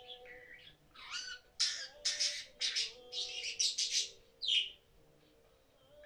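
Pet budgerigar chattering: a run of short, harsh chirps and squawks, loudest between about one and four and a half seconds in.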